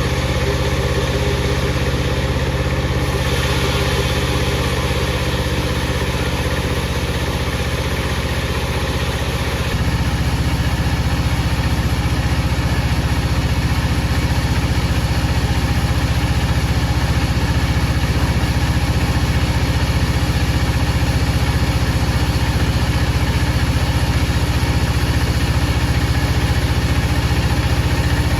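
Power saw machinery running with a steady low hum; about ten seconds in, the sound shifts and grows slightly louder.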